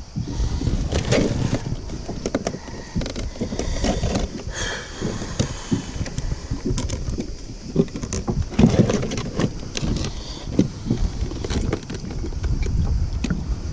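Irregular knocks, bumps and scrapes from a grouper being handled and set down on a plastic fishing kayak's deck and hull.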